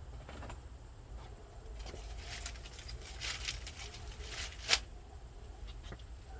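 Handling noises: short rustling and scraping sounds, with one sharp click about three-quarters of the way through.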